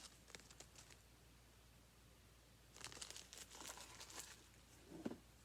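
Faint crinkling of small packaging being handled, a few quiet clicks at first, then a spell of rustling crackle about halfway through and a soft knock near the end.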